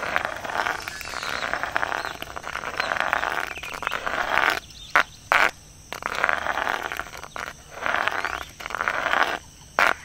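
A dense, frog-like croaking chorus that swells and breaks off. It drops out briefly about halfway, where two sharp clicks sound, and again near the end.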